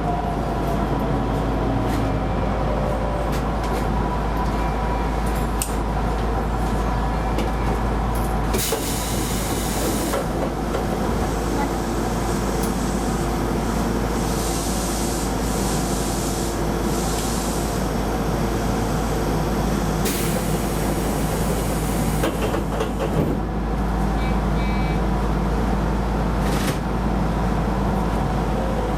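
Keisei Line electric rapid train running along the track, heard from inside the leading car: a steady rumble of wheels on rail with motor hum. Right at the start a whine falls in pitch, and twice a burst of hiss swells over the running noise.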